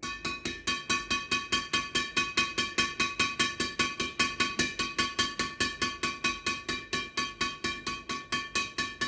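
String bed of a Felet Aeromars 10 badminton racket, strung with Felet Ultramax Turbo Nano 66 Plus at 27 lbs, struck rapidly and evenly, about five hits a second, each hit giving a bright ringing ping. The hits stop near the end.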